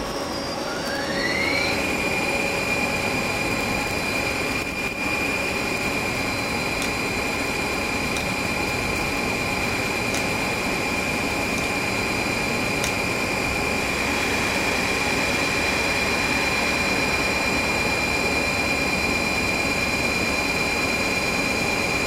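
Mazak CNC lathe spindle spinning up, its whine rising in pitch over the first two seconds, then running steadily at speed with a constant high whine over the machine's hum.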